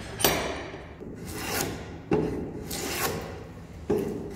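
Hand plane being pushed along a board clamped in a woodworking bench vise: about three strokes, each starting abruptly and swelling into a rasping hiss of shaving wood.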